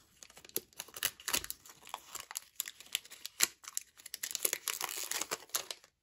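Foil wrapper of a Panini Prizm trading card pack crinkling and tearing as it is opened by hand: a dense, irregular run of sharp crackles.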